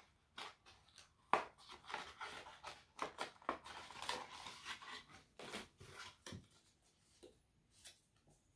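Small packaging being handled and opened: faint rustling, rubbing and quick clicks and scrapes for several seconds, thinning to a few scattered ticks near the end.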